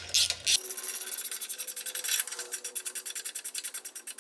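Small hand ratchet clicking rapidly and evenly, about ten clicks a second, as it is worked back and forth to tighten the nut of a V-band clamp.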